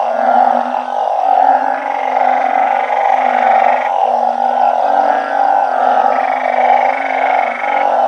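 A night chorus of many truncate-snouted burrowing frogs (Glyphoglossus molossus) calling together. Long low calls overlap without a break over a dense, steady din. A thin, steady high tone comes in twice, each time for about two seconds.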